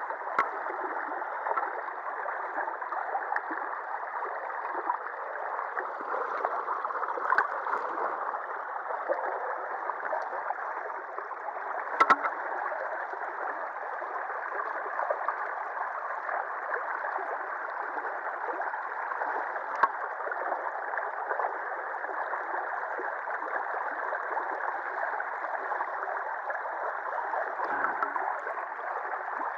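Shallow river water rushing and gurgling steadily over and around a concrete sill, with a few sharp clicks, the loudest about twelve seconds in.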